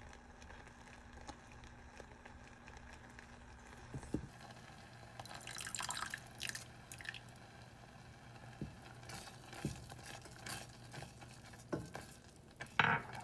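Homemade strawberry jam simmering in a pot, thick bubbles popping and spattering irregularly, more often from about five seconds in.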